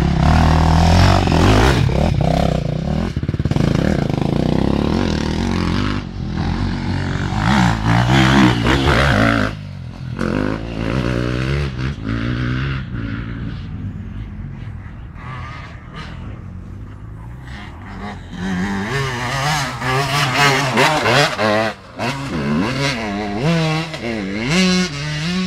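Motocross bike engines revving hard, the pitch repeatedly climbing and dropping with throttle and gear changes. The sound is loud for the first nine seconds, drops away, then grows loud again from about eighteen seconds in as a bike comes closer.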